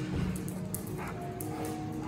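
A dog barking, over background music.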